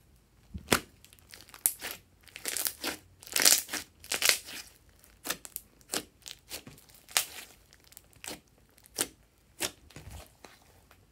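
Glossy slime being squeezed, poked and stretched by hand, giving wet crackles and sharp pops. The crackles come thick and fast in the first half, then thin out to single pops near the end.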